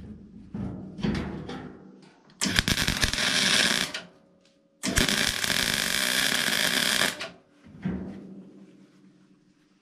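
MIG welder arc buzzing and crackling as it welds a steel tube frame, in two runs: one of about a second and a half and a longer one of about two seconds, with a short pause between. A few quieter knocks come before and after.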